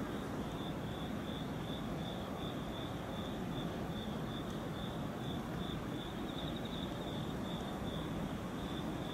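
Steady low rumble of an EF210 electric freight locomotive moving slowly through the yard. Insects chirp over it in an even rhythm of about two high pulses a second.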